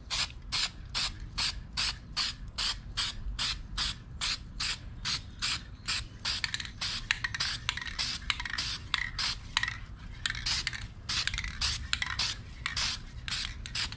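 Aerosol can of Rust-Oleum Hammered spray paint sprayed in quick short bursts, about three a second, hissing through a stencil.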